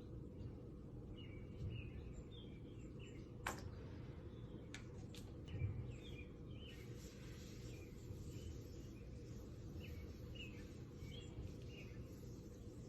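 Small birds chirping repeatedly over a faint, steady low background noise, with a few sharp clicks a few seconds in.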